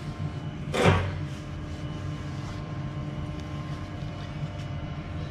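A single short swish of a cloth wiping along the lathe bed's ways about a second in, over a steady low workshop hum.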